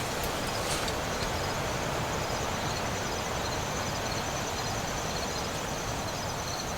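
Steady outdoor background noise with insects chirping faintly, short high chirps repeating about once or twice a second.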